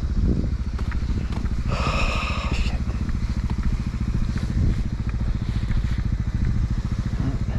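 Suzuki DR650's single-cylinder four-stroke engine running at low revs with an even beat. A brief high squeal comes about two seconds in.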